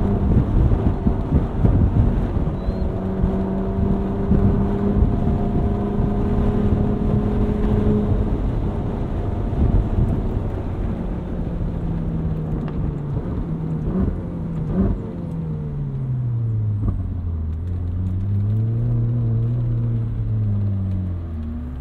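2013 Ferrari 458 Spider's naturally aspirated 4.5-litre V8 with sport exhaust, heard from the driver's seat over wind and road noise. It holds steady revs for several seconds, then the revs fall as the car slows, with two sharp clicks about two-thirds of the way through. Near the end the revs rise and fall gently.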